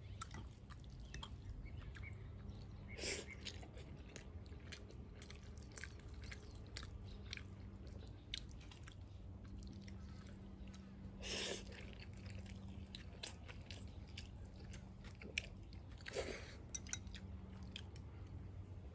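Close-miked chewing of pasta and meatballs, with light clicks of a fork against a ceramic bowl and three louder brief noises about 3, 11 and 16 seconds in, over a steady low hum.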